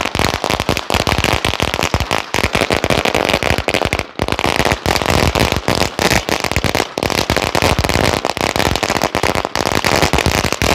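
A long firecracker string (a 10,000-shot ladi) going off: a rapid, continuous run of bangs, many a second, with a brief lull about four seconds in.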